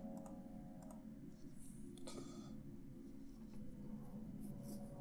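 A few faint clicks of a computer mouse and keyboard, with one louder click about two seconds in, over a steady low room hum.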